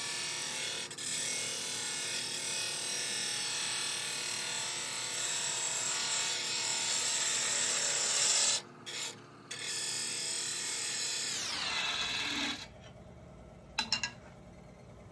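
Wood lathe running while a turning tool cuts a spinning goncalo alves (tigerwood) shift-knob blank: a steady hiss of cutting over the motor's hum, broken twice briefly about nine seconds in. About twelve seconds in the lathe is switched off and its pitch falls as it spins down, followed by a couple of clicks.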